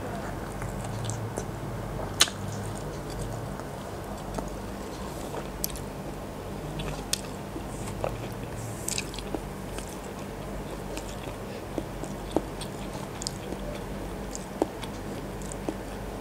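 Close-miked biting and chewing of a skewered chicken embryo egg, an incubated egg that died before hatching, with scattered sharp mouth clicks, the loudest about two seconds in, over a steady low hum.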